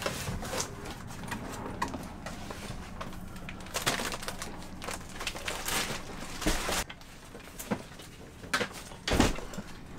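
Groceries in a mesh bag and a backpack being handled, rustling with a few knocks and a dull thump near the end.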